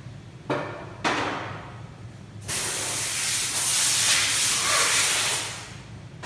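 Liquid poured from a plastic pot onto snowboard cores lying in a forming mould, an even splashing hiss for about three seconds that fades out, after two short sudden knocks about half a second and a second in.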